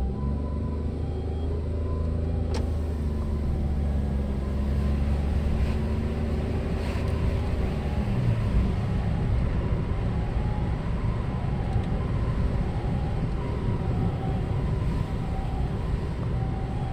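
Road vehicle engine rumbling with a low steady drone that stops about eight seconds in, giving way to an even road rumble. Under it an ambulance's two-tone siren alternates faintly and steadily between a higher and a lower note.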